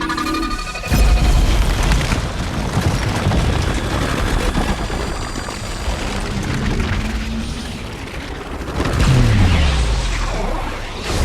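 Isolated science-fiction film sound effects: a heavy boom about a second in, then dense rumbling, and a deep falling sweep with a second swell near the end.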